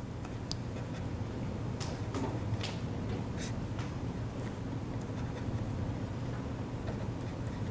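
Pen writing on a sheet, a series of short faint scratches, over a steady low hum.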